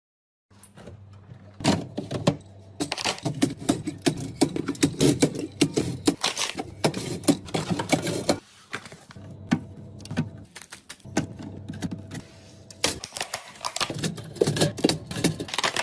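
Drink cans and bottles clinking and clattering as they are handled and set into a beverage fridge: a busy run of sharp knocks and clinks, starting suddenly about half a second in.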